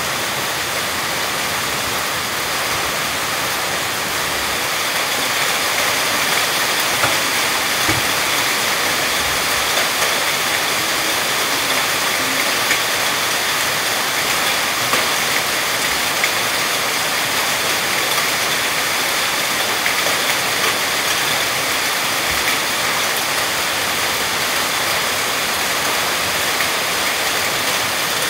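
Heavy rain falling, a loud, steady hiss with a few faint scattered ticks of drops.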